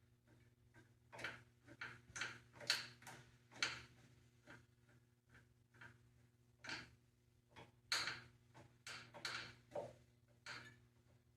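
Irregular light metallic clicks and taps of hand tools and small metal linkage parts being handled during assembly, one or two a second, over a faint steady hum.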